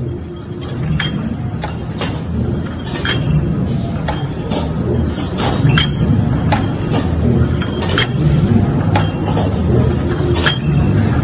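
Bolt thread rolling machine running: a steady low mechanical rumble with sharp metallic clinks of bolts and tooling, about one or two a second.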